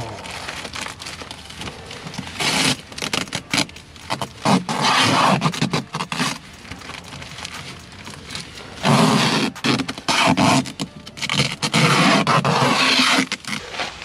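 Tape being pulled off its roll in several long, loud rips and wrapped around a flexible duct joint, with crinkling of the foil-jacketed flex duct between pulls.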